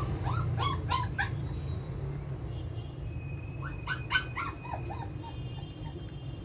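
Six-week-old puppy whimpering in short, high yelps as oral dewormer syrup is squirted into its mouth: about four near the start and another run of five or six around four seconds in.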